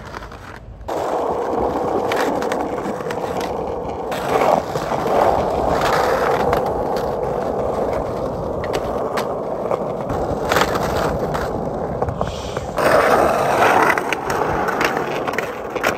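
Skateboard rolling and grinding along a concrete curb on Tensor Mag Light trucks: a long, unbroken scrape of metal trucks on concrete mixed with the rumble of wheels on asphalt. It starts about a second in and gets louder around four seconds in and again near the end.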